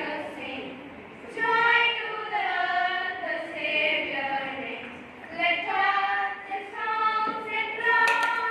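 A group of children singing together, holding long notes in a slow song.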